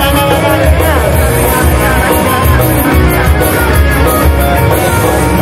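Idol-pop song played loud through a PA at a live stage performance, with a heavy bass beat and female group vocals.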